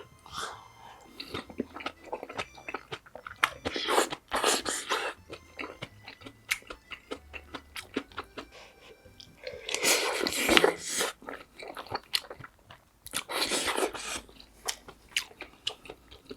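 Close-miked chewing and biting of food, with many small wet mouth clicks. A few louder noisy bursts break in, the loudest about ten seconds in.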